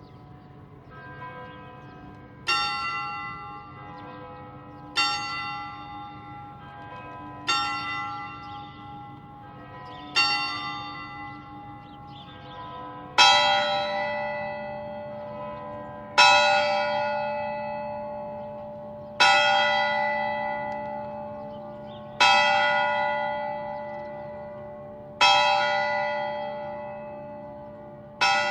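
Church bells tolling: a bell struck four times about two and a half seconds apart, then from about halfway through a louder, deeper bell struck six times about three seconds apart, each stroke ringing on and fading.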